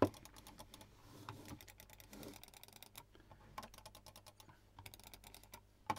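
Logitech MX Master computer mice being clicked and handled: a run of quiet, irregular small clicks.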